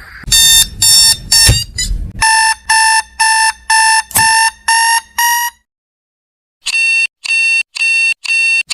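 Electronic alarm clock buzzers beeping. A few harsh buzzing beeps come first. Then a steady beep repeats about twice a second and cuts off abruptly about five and a half seconds in, the clock losing power. After about a second of silence, a higher-pitched beep starts, also about twice a second.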